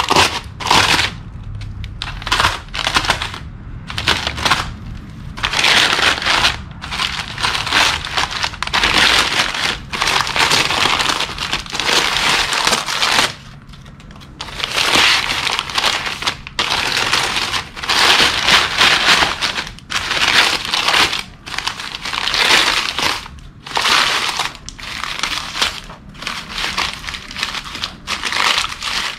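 Heavy packing paper being crumpled and pulled off a wrapped part, in loud, irregular crinkling bursts with a short lull about halfway through.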